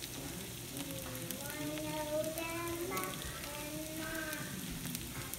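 Grated potato cakes shallow-frying in a little oil in a nonstick pan, a steady sizzle with small crackles. Over it runs a melody of long, gently bending held notes.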